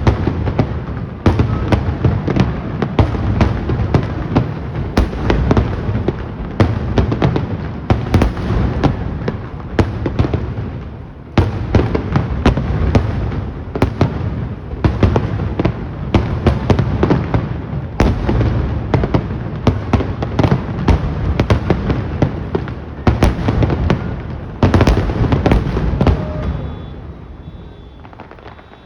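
Aerial firework shells bursting in a dense, continuous barrage of booms and crackles: the finale of a fireworks display. The bursts stop about 26 seconds in and the sound dies away.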